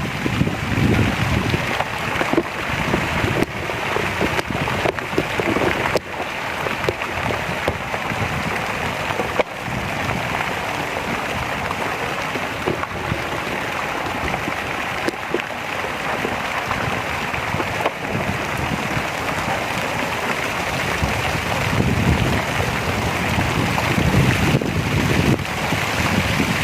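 Fountain water splashing steadily, with wind rumbling on the microphone near the start and again toward the end.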